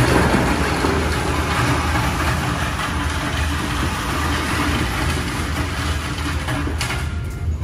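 An engine running steadily at idle, with a loud rushing noise over it that starts suddenly and stops shortly before the end.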